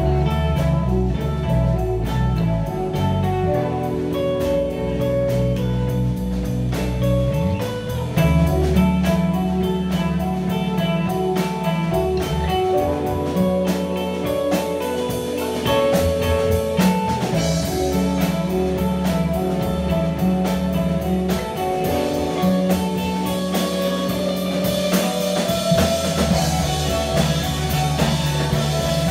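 Live rock band playing an instrumental passage: electric guitars and bass over a steady drum-kit beat.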